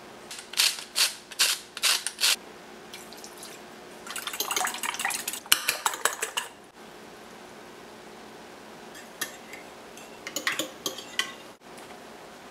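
Whisk beating eggs in a glass dish, the wires clinking against the glass. There is a run of about six sharp clinks, then a couple of seconds of rapid clicking, then a few lighter clinks near the end.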